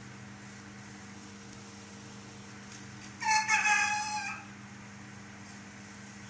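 A rooster crowing once, a single call of about a second and a half about halfway through, over a steady low hum.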